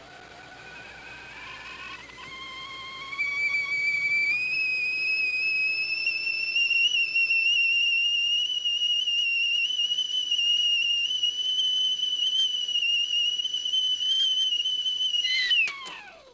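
A high whistling whine that rises in pitch over the first few seconds, then holds steady with a slight waver. Near the end it drops sharply in pitch and dies away.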